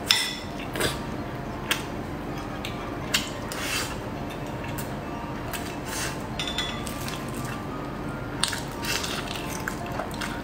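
Close-up eating sounds: wet chewing and lip smacks on braised chicken pulled from the bone, with scattered sharp clicks. Near the start a spoon clinks with a short ring against a glass bowl.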